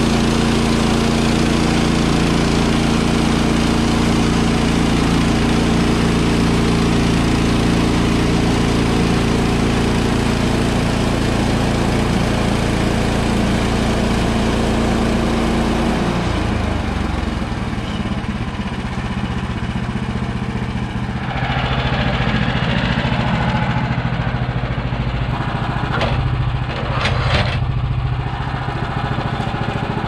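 Woodland Mills HM130max portable band sawmill running steadily at high revs as the band saw cuts through a pine log. About sixteen seconds in, the engine drops to a lower, uneven idle, then picks up again, and a few sharp knocks of wood being handled come near the end.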